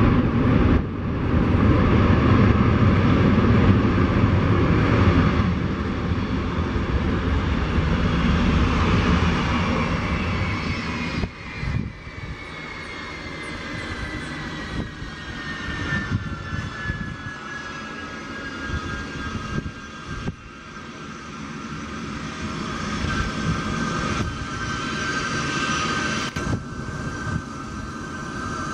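Boeing C-17 Globemaster III's four jet engines running loud with a heavy rumble as the big transport rolls along the runway. About a third of the way in the rumble drops away and the engine whine falls in pitch as the engines settle back, leaving a steady high whine while it taxis.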